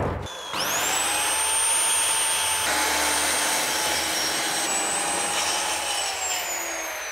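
Corded handheld circular saw spinning up about half a second in and cutting a corner off an OSB board with a steady high whine. Its pitch falls near the end as the motor winds down.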